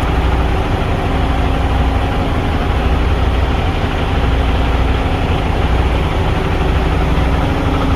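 Semi truck's diesel engine idling steadily with a deep, even rumble.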